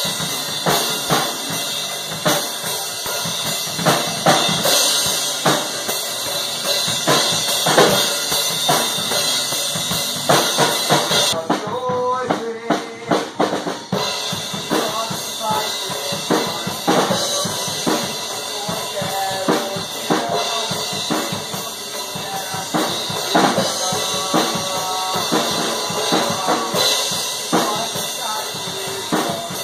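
Acoustic drum kit played live in a rock rehearsal: steady kick, snare and cymbal beats, with the cymbals dropping out for a couple of seconds about halfway through. A vocalist sings into a microphone over the drums.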